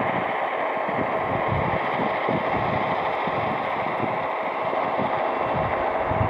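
Steady rumbling noise of a moving train, with wind buffeting the microphone.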